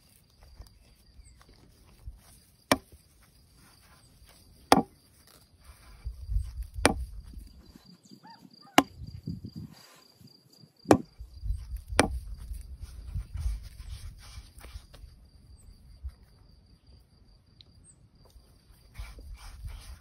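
Hands kneading and pressing a ball of dough on a floured wooden board: soft low thuds and rubbing, with six sharp knocks against the wood in the first twelve seconds or so. A faint steady high insect trill runs behind.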